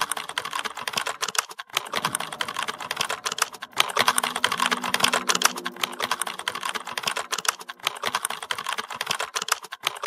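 Computer keyboard typing: rapid key clicks in quick runs, with brief pauses about one and a half seconds and four seconds in.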